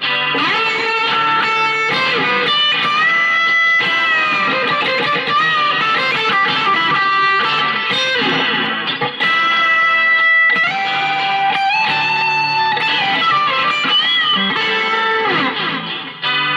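Chinese-made Telecaster-style electric guitar played through an amp on its bridge pickup, playing single-note lead lines with string bends and vibrato.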